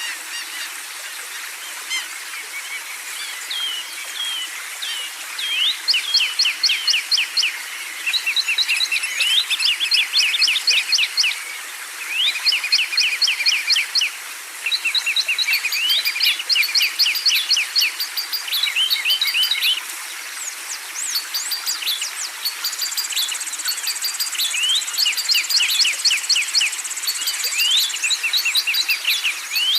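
Songbirds chirping and singing, several at once: fast runs of sharp, evenly repeated notes and trills, growing louder and denser after the first few seconds. Partway through, a higher buzzy trill joins for a few seconds.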